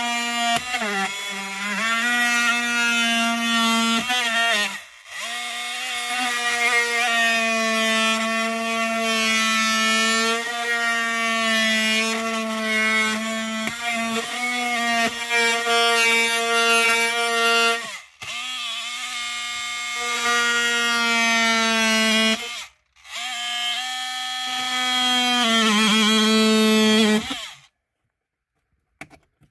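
Oscillating multi-tool running as it cuts into the car's dash, a steady buzzing hum whose pitch wavers slightly as it bites. It stops briefly three times and cuts off a couple of seconds before the end.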